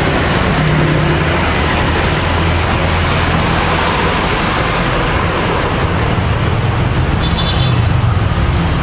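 Steady street traffic noise, with the hum of vehicle engines passing on the road.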